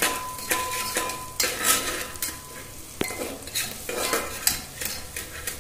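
Metal spatula scraping and clinking repeatedly against the base of a small pressure cooker, with a sharp clink about three seconds in. Under it, minced ginger and garlic sizzle as they fry in butter.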